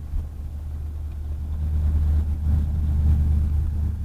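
A car engine's low, steady rumble. It grows louder over the first three seconds and eases off a little near the end.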